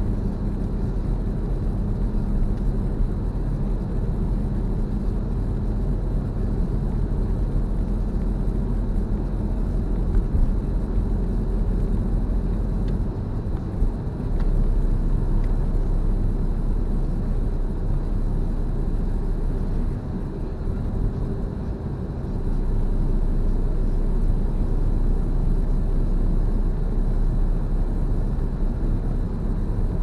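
Car driving on an open road, heard from inside the cabin: a steady low rumble of engine and tyre noise, easing slightly twice.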